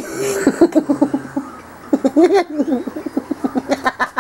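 Short cries and yelps that bend up and down in pitch, the loudest about two seconds in, with quick pulsing laughter breaking in near the end: reactions to an air horn blast.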